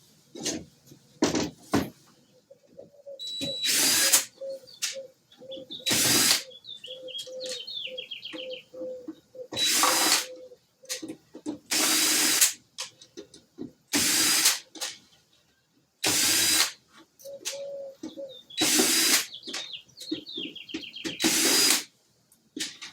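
Cordless drill-driver running in short bursts, backing screws out of a plastic clock insert, with about eight loud runs of a second or so each and quieter pulsing between them.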